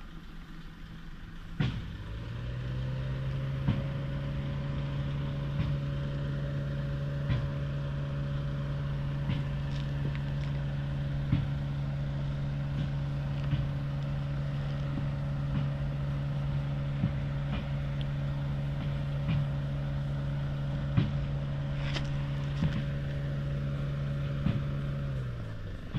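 A motor hums at one steady pitch for over twenty seconds. It rises briefly as it starts about two seconds in and sags as it winds down near the end. Scattered light clicks sound over it.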